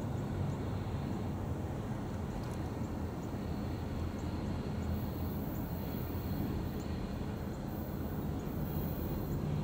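EMD SD40-2 diesel locomotive running steadily with a low rumble as it approaches, hauling a short freight train.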